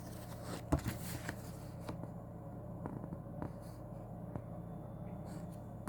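A few light clicks and soft rustles of handling over a low steady hum.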